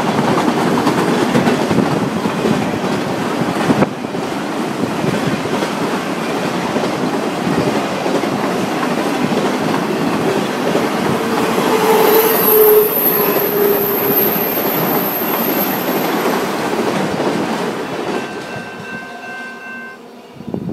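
Autorack freight cars rolling past on steel wheels, a dense steady rumble and rattle on the rails. A high-pitched wheel squeal rings out for a few seconds in the middle. The noise then fades away as the last car goes by.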